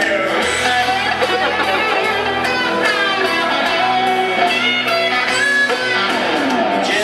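Electric guitar played live, strummed and picked, in an instrumental break between sung lines of a song.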